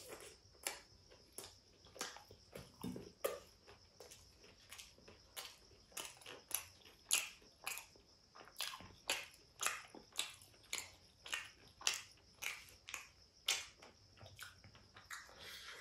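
Close-miked chewing of a fried chicken lollipop: wet mouth smacks and clicks, about two a second. Near the end comes a longer, softer sip from a glass of water.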